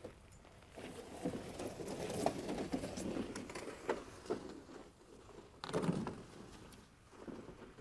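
Boots crunching on packed snow while a plastic pulka sled is dragged by its shafts and scrapes over the snow, with a louder scrape near 6 seconds in.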